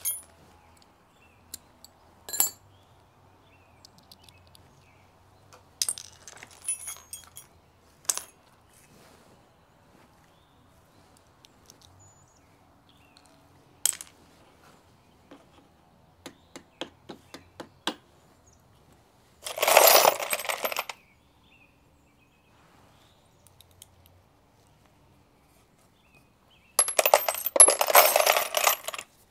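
Metal tools and hardware being handled: scattered sharp clinks and a run of quick ticks, then two longer bursts of rattling, jingling clatter about twenty seconds in and near the end.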